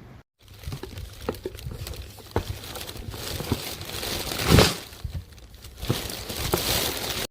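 Plastic packaging, likely of the dehumidifier tubs, being handled: crinkling and rustling with scattered clicks and knocks. The loudest crunch comes about four and a half seconds in, and the sound cuts off abruptly at the end.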